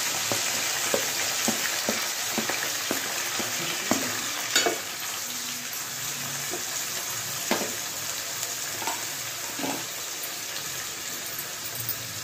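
Sliced onions sizzling in hot oil in an aluminium pot, the hiss slowly getting quieter. They are being stirred, with a scatter of knocks against the pot, most of them in the first few seconds.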